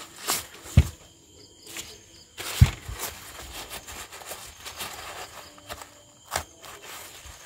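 Sweet corn cob being cut on a plastic cutting board: a few sharp knocks, the loudest about two and a half seconds in, with quieter handling noise between.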